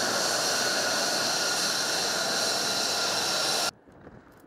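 F-35I's F135 turbofan jet engine running steadily, a loud rushing hiss with a high-pitched whine. It cuts off abruptly about three-quarters of the way through, giving way to faint wind noise with a few low thumps.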